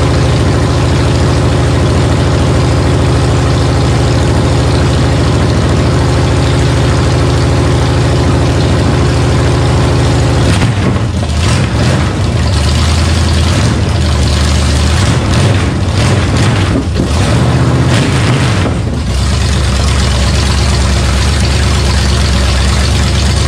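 Small-block Chevy V8 on an engine run stand, running through open headers during the break-in run of a freshly built engine. It runs steadily, turns uneven and unsettled for several seconds in the middle, then settles back to a steady run.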